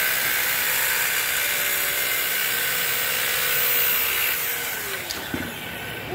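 Handheld power grinder running steadily with a high whine, then switched off and winding down in a falling whine about four and a half seconds in, followed by a click and a light knock.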